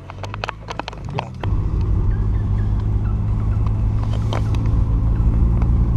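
Car engine heard from inside the cabin, with scattered clicks and knocks over a low hum at first. About one and a half seconds in, the engine note jumps to a louder, deeper drone and then runs steadily.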